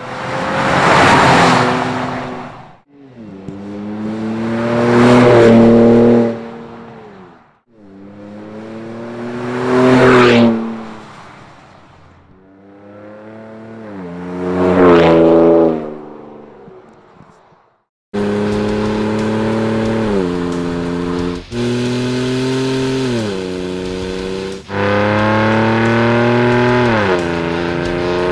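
Ford F-150 pickup driving past under acceleration four times in a row, each pass rising to a peak and fading as the engine note drops: the truck on its stock exhaust, then on Borla Touring, S-Type and ATAK cat-back exhausts. After a short gap, a longer continuous engine run follows, its pitch stepping with two brief dips in level.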